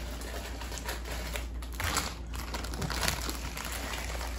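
Plastic instant-noodle wrappers crinkling and dry noodle blocks crackling as they are handled into a glass bowl: irregular small crackles with a few sharper clicks about two and three seconds in, over a low steady hum.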